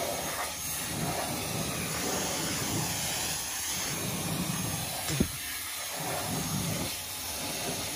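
Pressure washer jet spraying water onto a car's wheel and body: a steady hiss, with one sharp click about five seconds in.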